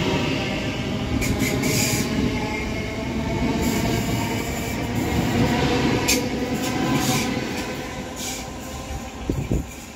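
Southeastern Class 465 Networker electric multiple unit moving along the platform: a steady rumble of wheels on rails with a whine from the traction motors, broken by several short, high screeches. The sound fades near the end as the train draws away.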